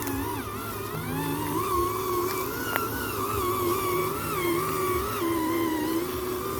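Electric motor of an RC construction vehicle whining, its pitch wavering up and down with the throttle and rising a little after a second and a half, with a couple of faint clicks.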